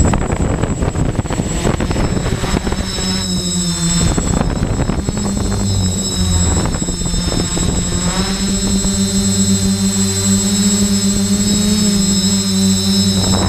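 Quadcopter's electric motors and propellers, recorded on board, spinning up with rough rotor-wash noise as it lifts off, then settling into a steady propeller hum with a thin high motor whine. The pitch dips briefly about four seconds in, then holds steady.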